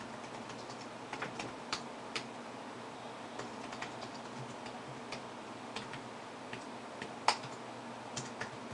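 Computer keyboard being typed on in short, irregular runs of key clicks, with one louder click about seven seconds in, over a faint steady hum.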